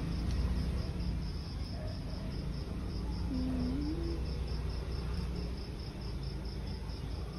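A cricket chirping steadily, about four short high chirps a second, over a low steady hum. A short rising hum sounds briefly about three seconds in.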